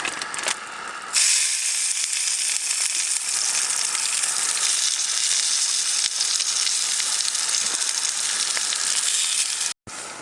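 Stick potatoes frying in a hot frying pan: a loud, steady sizzle that starts suddenly about a second in and cuts off abruptly near the end.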